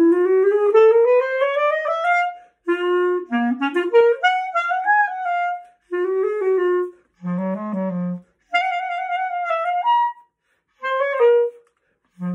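Solo clarinet playing a written piece: a rising run up to a higher note, then a string of short phrases separated by brief rests.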